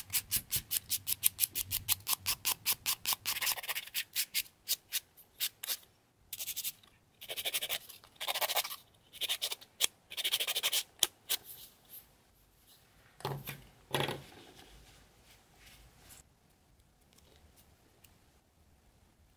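A hand nail file rasping back and forth over gel nail extensions, first in quick short strokes, about four a second, then in slower, longer strokes.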